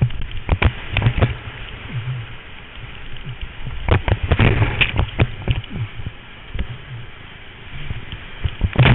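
Kayak paddling through whitewater rapids, heard from a camera on the boat: rushing water with irregular splashes and paddle strokes slapping the water. Heavier clusters of splashing come about four to five seconds in and again near the end.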